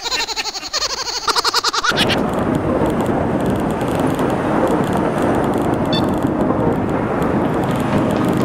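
A short pitched, fluttering sound, then from about two seconds in a steady rush of wind and road noise on the microphone of a camera carried on an electric kick scooter moving along a road.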